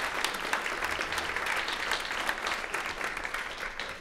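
Audience applause, many people clapping steadily, dying away near the end.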